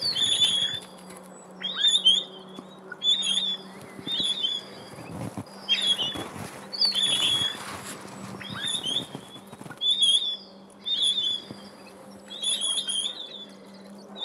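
Pine grosbeaks giving short whistled calls, roughly one a second, mixed with bursts of wing flapping from birds struggling in a mist net.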